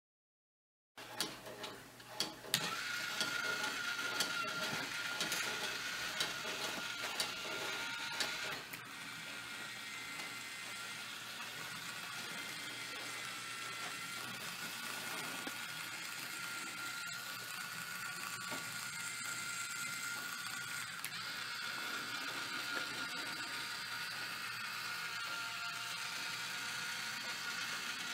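Wooden gears of a kinetic model steam locomotive turning, a steady clicking, ratchet-like clatter of wooden teeth. A few separate clicks about a second in, then continuous running that eases slightly near a third of the way through.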